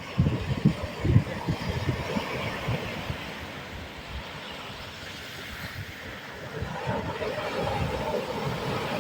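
Sea waves washing and surging on the shore, a continuous rushing wash that eases in the middle and swells again, with low buffeting rumbles in the first two seconds and again near the end.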